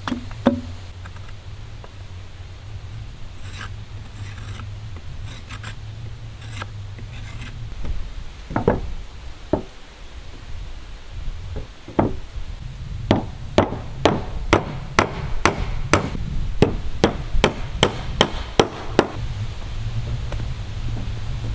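Hammer striking wood: a few scattered blows, then a quick run of about three strikes a second before it stops, over a steady low rumble.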